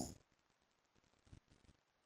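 Near silence in the pause between a sleeping man's snores: the end of one snore dies away at the very start, leaving only faint room tone and a few soft ticks.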